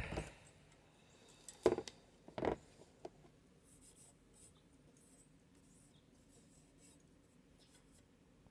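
Handling noises: two short rubbing scrapes about two seconds in, a small click, then faint scratchy rustling.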